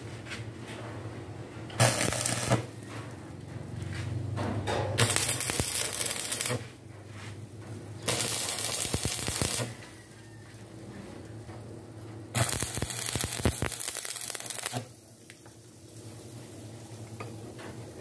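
Stick (arc) welding on steel bar: four separate bursts of arc crackle and sizzle, each a second or two long, with short pauses between them. These are short tack welds laid down before the joint is fully welded.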